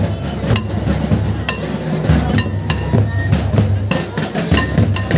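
Live folk drumming for a line dance, with sharp, ringing clinks at uneven intervals over a steady low beat, mixed with crowd voices.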